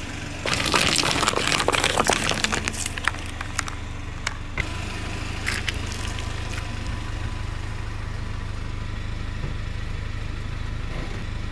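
Car engine idling steadily while its tyre rolls over concrete. About half a second in comes a dense burst of crackling and crunching as something is crushed under the tyre, lasting a couple of seconds, then a few scattered clicks.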